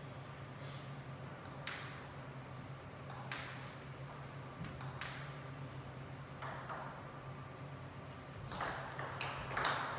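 Table tennis ball clicks: a few single, spaced clicks, then a quick run of louder bat strikes and table bounces as a rally is played near the end. The clicks ring a little in a large hall.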